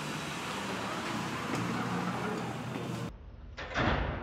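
Steady street traffic noise, then a change to duller, quieter sound about three seconds in. Just before the end a glass door is suddenly pulled open with a clunk.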